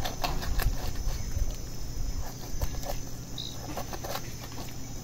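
Kitchen knife cutting and scraping inside a raw whole chicken on a wooden board, with scattered small clicks and scrapes.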